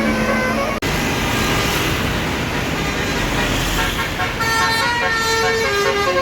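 Basuri multi-tone telolet horn on a tour bus playing a melody of stepped notes. It breaks off suddenly less than a second in and gives way to a steady rush of bus engine and traffic noise. A horn melody starts again about four and a half seconds in.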